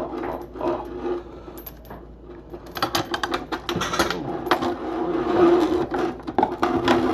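Clinks, clicks and rattles of a new faucet's metal parts and supply lines being handled and fed through the faucet base during installation, heaviest about three seconds in and again near the end.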